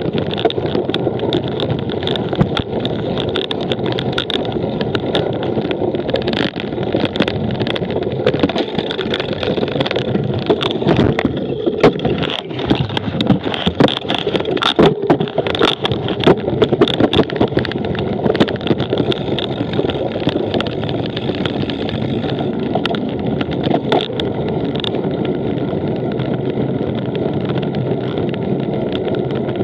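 A cyclocross bicycle ridden hard over rough ground, with steady rolling and wind noise and frequent knocks and rattles from the bike over bumps, busiest around the middle.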